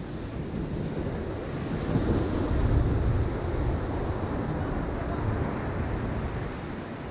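Surf washing onto a sandy beach, with wind rumbling on the microphone. The noise swells about two to three seconds in.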